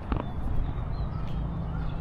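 Walking ambience: a footstep just after the start, small birds chirping on and off, over a steady low rumble.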